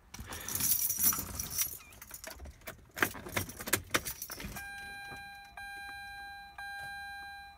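Car keys jangling and clicking as the key goes into the Mazda RX-8's ignition. About four and a half seconds in, a steady electronic warning chime from the dashboard starts, sounding about once a second.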